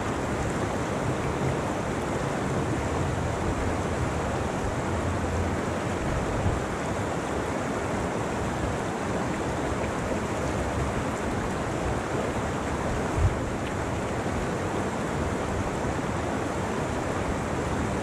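Mountain creek rushing over rocks close by, a steady roar of whitewater, with two brief low thumps, one about six seconds in and a louder one about thirteen seconds in.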